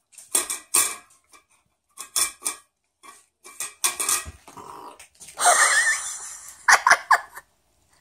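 Yorkshire terrier licking and nosing an empty stainless steel bowl in a metal stand, the bowl clinking and scraping against the stand in short bursts, with a longer grating scrape a little past halfway.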